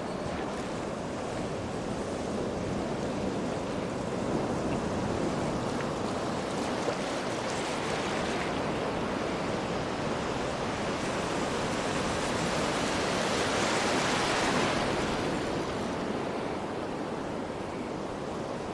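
Shallow surf washing over a sandy beach: a steady rush of foaming water that swells louder for a few seconds about two-thirds of the way through.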